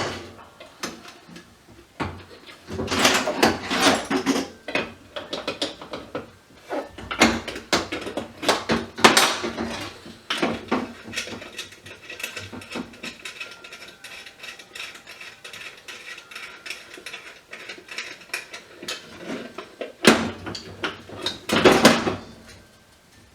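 Small metal parts and hardware clinking and clattering as an old light fixture is taken apart by hand. A few louder knocks come near the end.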